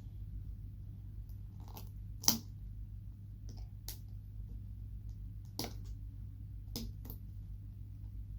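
Crinkly plastic wrapper of an LOL Surprise doll ball crackling in sporadic handfuls as it is pulled and torn at, with a sharp crackle about two seconds in.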